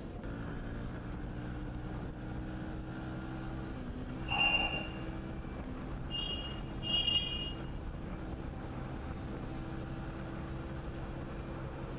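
Motorcycle engine running steadily under way, with road and wind noise. Short vehicle-horn honks cut in: one louder honk about four and a half seconds in, then two quick higher honks around six to seven seconds in.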